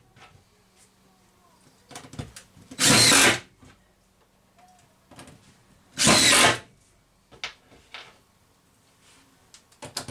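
Drill driving screws down through the countertop base into a hidden brace, in two short bursts of under a second each, about three seconds apart, with light clicks of handling between. The screws are catching the brace.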